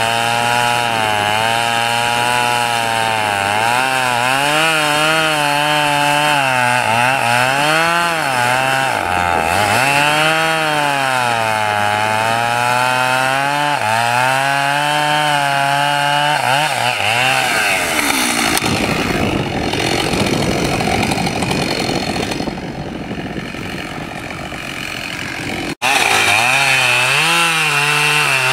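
Husqvarna 572XP two-stroke chainsaw cutting through a thick maple log at full throttle, its engine note dipping and recovering as the chain bites and clears. For several seconds near the end the engine note gives way to a quieter, rougher rush. A brief dropout follows, then the saw runs high and steady in a new cut.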